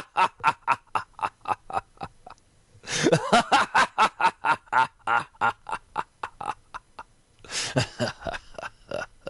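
Repeated fits of laughter, each opening with a loud burst and trailing off into a quick train of short 'ha' pulses that slow and fade. One fit is already running at the start, a second begins about three seconds in, and a third comes about a second and a half before the end.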